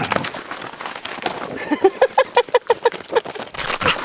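A dog's quick run of short, pitched yips, about six a second, starting just before halfway through, with a rougher, noisier start.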